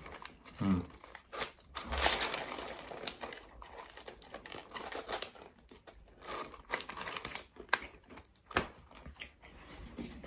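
Paper bakery wrapper crinkling in the hands while a person bites into and chews a bread roll, with irregular crunchy clicks and rustles.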